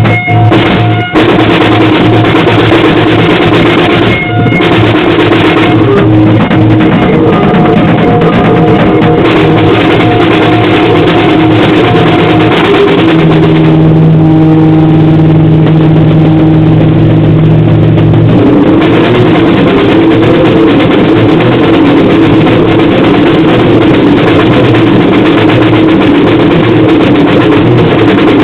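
Loud, heavily distorted chaotic grindcore noise music: a dense wall of distorted strings and drums, with short breaks near the start and the held low notes shifting pitch twice in the middle.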